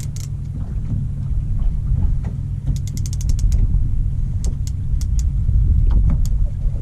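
Steady low rumble, with a fast run of about ten sharp clicks a little under three seconds in and a few single clicks after, like a fishing reel's mechanism working under the load of a hooked bull shark.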